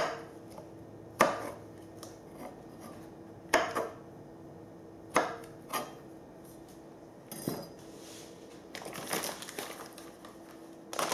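Chef's knife chopping okra on a wooden cutting board: about six sharp knocks at uneven gaps of one to two seconds. Near the end, a paper bag rustles as it is handled.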